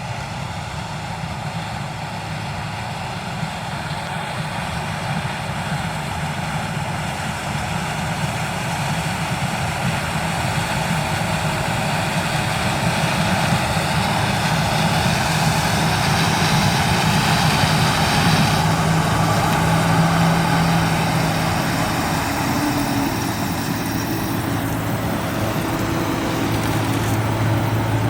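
Claas Lexion 440 combine harvester running while harvesting corn, its engine and threshing machinery a steady, continuous din. It grows louder over the first twenty seconds or so, then eases off a little.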